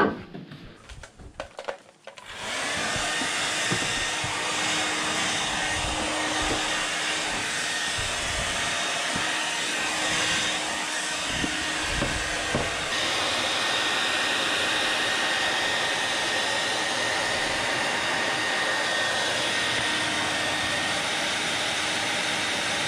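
A few knocks and rustles of a rubber floor mat being handled, then about two seconds in a handheld Panasonic hair dryer switches on and runs steadily. It is blowing warm air over the mat to soften it flat after it was shipped rolled up.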